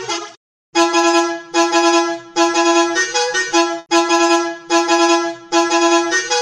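The 'ta ta ta ta ta' bus horn meme tune in a reedy, accordion-like tone, a short horn motif repeated in quick phrases of just under a second each, starting after a brief silence.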